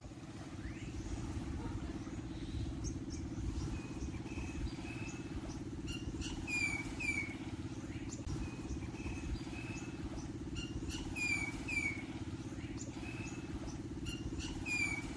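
A steady low rumble runs throughout, with a bird calling over it: short falling whistles in clusters of two or three, repeated several times.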